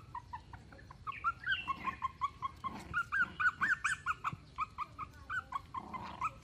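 Puppies whimpering and yipping: a quick run of short, high-pitched whines, several a second, louder through the middle.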